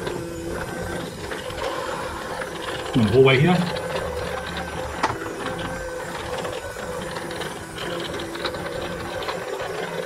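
Budget robot vacuum cleaner running on a tiled floor: a steady small-motor whir with its side brushes turning. About three seconds in a brief voice sounds over it, and there is a single click about five seconds in.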